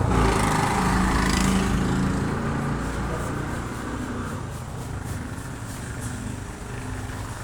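Motor of an electric workshop power tool running steadily, slowly getting quieter.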